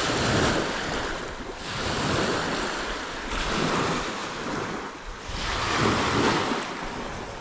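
Small waves of Lake Malawi lapping and breaking on the shore, swelling and falling every couple of seconds, with wind buffeting the microphone.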